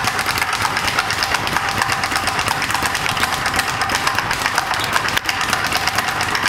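Speed bag punched in rapid freestyle: a fast, unbroken rattle of the leather bag striking the wooden rebound platform and the fists.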